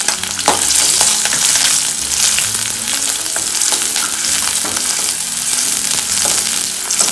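Roughly chopped onion sizzling in hot oil with garlic and green chillies in a steel kadhai as it goes in. It is stirred with a spatula, which makes a few light knocks against the pan.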